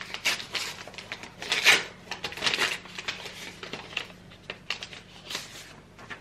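Paper rustling and crinkling as a paper envelope is opened and a greeting card is drawn out, in irregular bursts that are loudest around the middle.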